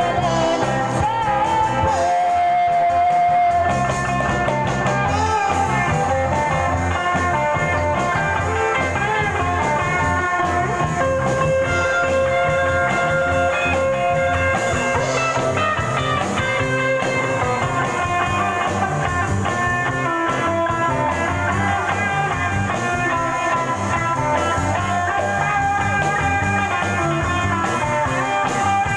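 A band playing a guitar-led rock song, continuous and steady in level, with some singing.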